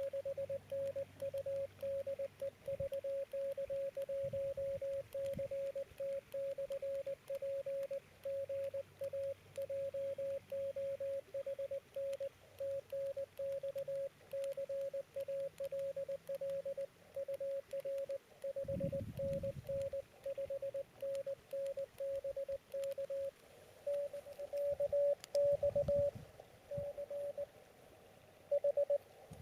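Morse code (CW) from an Elecraft KX2 transceiver: a single tone of about 600 Hz keyed on and off in dots and dashes, a little louder for the last few seconds. Two brief low rumbles come through around two-thirds of the way in and near the end.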